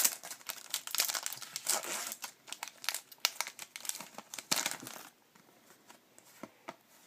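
Foil wrapper of a hockey card pack crinkling and tearing for about five seconds as it is handled and ripped open, then only a few faint ticks of cards being handled.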